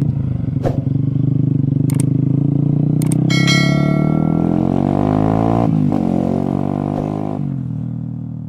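A vehicle engine accelerating: its note climbs for several seconds, drops back twice as it shifts gear, then fades away near the end. A few sharp clicks sound in the first three seconds.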